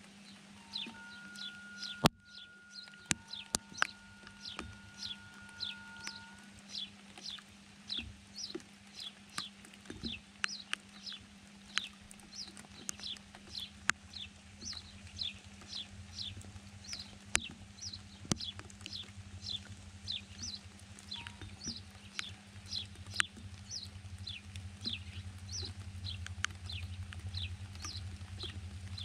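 A bird repeating a short, falling chirp about twice a second, with scattered sharp clicks and a faint low hum that strengthens in the second half.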